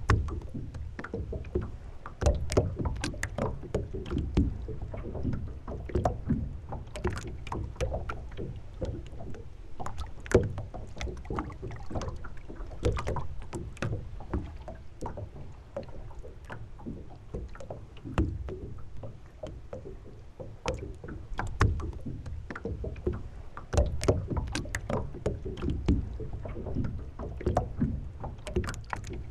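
Small waves slapping and lapping irregularly against the hull of a boat lying on its mooring, with many sharp slaps over a constant low rumble.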